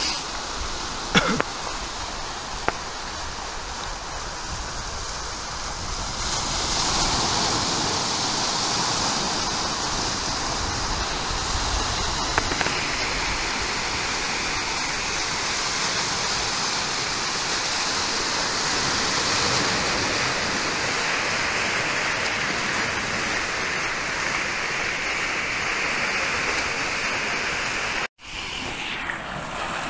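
Sea surf breaking and washing over a rocky, pebbly shore: a steady rushing that grows louder about six seconds in. A couple of short sharp knocks come in the first few seconds, and the sound cuts out for an instant near the end.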